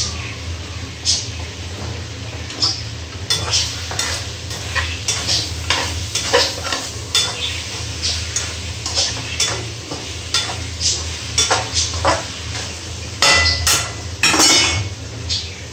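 A metal utensil stirring chicken and potato pieces in a wok, scraping and clattering irregularly against the pan over a light frying sizzle. A steady low hum runs underneath. The loudest scrapes come near the end.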